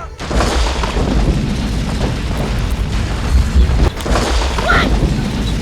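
Loud, continuous low booming rumble with scattered sharp hits, with music underneath; it starts suddenly after a brief gap.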